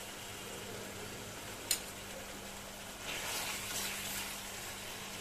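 Ginger-garlic paste in oil and water sizzling and bubbling in a non-stick pan, with a single sharp click about one and a half seconds in. From about three seconds in a spatula stirs and scrapes through the mixture as the spices are fried in.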